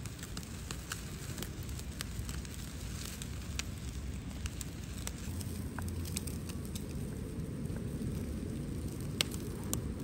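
Open cooking fire burning, with scattered sharp crackles and pops over a low steady rumble.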